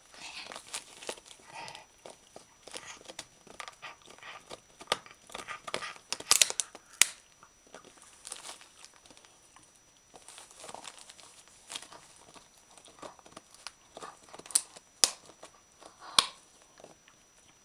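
Christmas wrapping paper crinkling and tearing as a wire-haired terrier chews and rips at a wrapped chew bone, an uneven run of rustles with a few sharp, louder crackles about six seconds in and again near the end.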